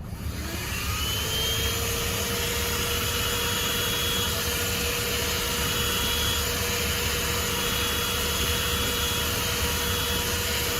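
THISWORX 12V corded handheld car vacuum switched on: its motor spins up with a rising whine over the first second or so, then runs steadily with a faint high whistle as it sucks through the extension hose.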